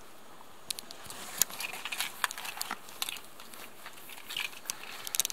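Small plastic clicks, taps and crinkling from a car's plastic grille and its retaining clips being handled and pressed into place, irregular and starting about a second in.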